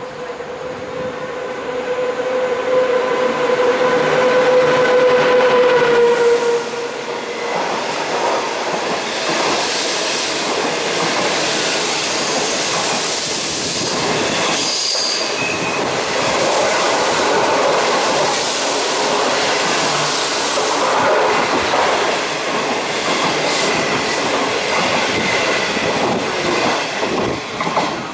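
SS8 electric locomotive hauling a train of Through Train passenger coaches past at speed. A steady whine sounds for the first six seconds or so, followed by a long run of wheel and rail noise. A brief high wheel squeal comes about fifteen seconds in.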